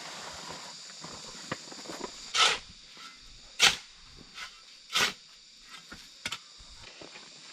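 A series of sharp strikes, irregularly spaced, with three loud ones about a second or so apart in the middle and a few lighter ones around them. Under them runs a steady high-pitched hiss.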